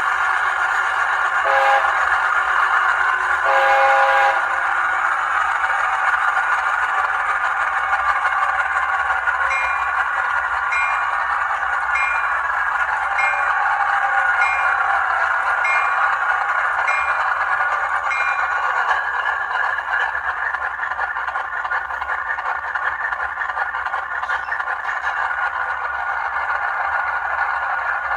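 ESU LokSound 5 sound-decoder recording of a Union Pacific SD90MAC-H Phase II diesel, played through an HO-scale model's speaker: the EMD 16V265H prime mover runs steadily throughout. The horn blows during the first few seconds. From about ten seconds in, the bell rings with a slow, even ding for about nine seconds.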